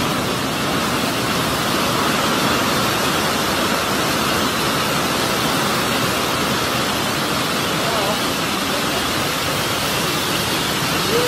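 Heavy rain drumming on a tent roof, heard from inside the tent as a loud, steady hiss.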